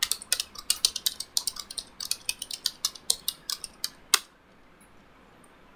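Computer keyboard typing: a quick run of keystrokes that stops about four seconds in with one louder keystroke.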